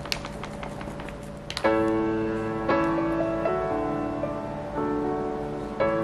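Background piano music: after a quieter start, a chord comes in sharply about one and a half seconds in, and the chords change roughly every second after that.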